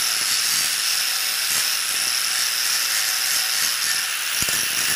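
A spinning abrasive sanding disc grinding hard against metal, a steady high-pitched hiss and rasp, with a brief knock about four and a half seconds in.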